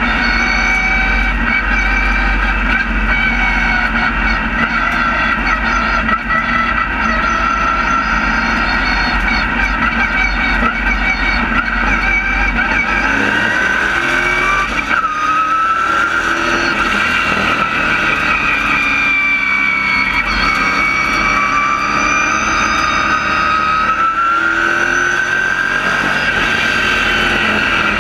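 Race car engine running hard, heard from inside the cockpit. Its pitch dips and climbs back several times as the car goes around the track.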